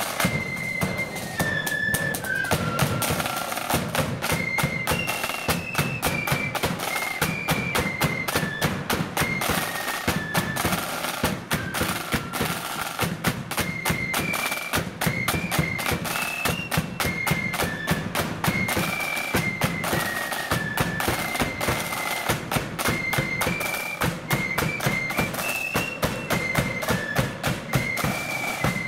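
Blood-and-thunder marching flute band playing a tune: flutes carry a high melody over the rapid, continuous beating of snare side drums and a bass drum.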